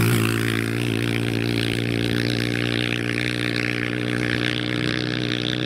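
Pit bike engine running at a steady pitch.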